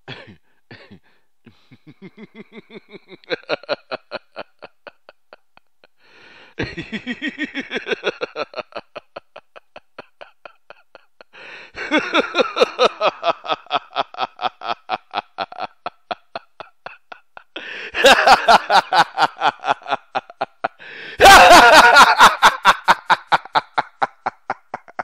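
A person laughing in long runs of quick ha-ha pulses, about six a second. There are five bouts, each louder than the one before, and the last is the loudest.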